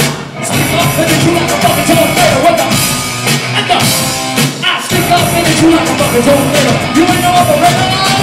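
Live electro-punk band playing loudly, with drums, distorted electric guitar and a singer. About three seconds in the bass and kick drum drop out for a couple of seconds before the full band comes back in.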